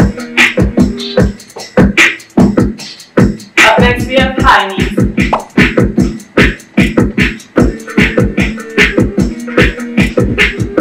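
Upbeat dance-workout music with a steady, fast, heavy beat. A short vocal phrase rises and falls about four seconds in.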